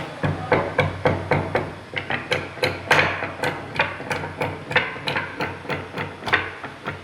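Hammering in a steady rhythm, about three blows a second.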